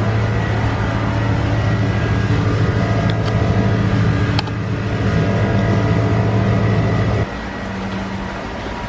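Steady, loud machine hum with several steady tones, with a sharp click about four seconds in; a little after seven seconds it drops suddenly to a quieter, higher-pitched hum.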